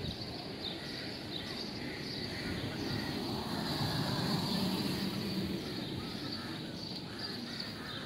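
A small hatchback car driving past, its engine and tyre noise swelling to a peak about halfway through and then fading, over street ambience with faint high chirps.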